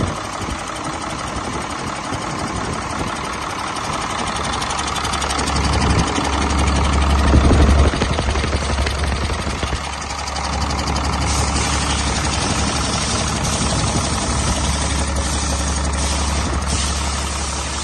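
2011 Cummins ISB6.7 inline-six turbodiesel running on a test run, mostly at idle. It grows louder for a couple of seconds in the middle and drops back suddenly about eight seconds in.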